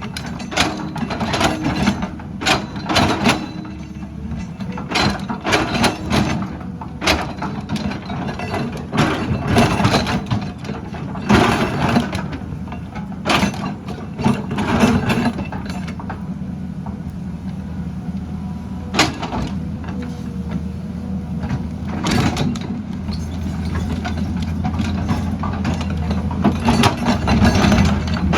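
Tata Hitachi excavator's diesel engine running steadily, with frequent sharp knocks and clatter as the machine works.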